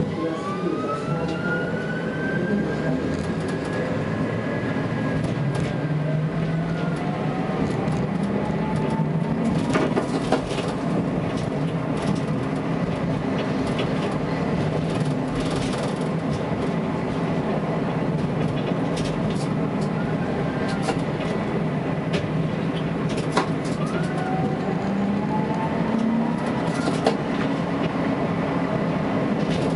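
Tatra T3S tram running on its rails, heard from inside the driver's cab: a steady rumble of wheels on track, with a traction-motor whine that rises in pitch as the tram pulls away from a stop and then slowly sinks. A few sharp knocks from the track come partway through, and near the end a second whine climbs as the tram speeds up again.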